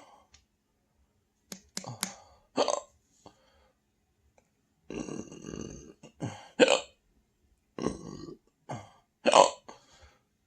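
Person belching repeatedly from an overfull stomach: a string of short belches, with one longer, drawn-out belch about five seconds in.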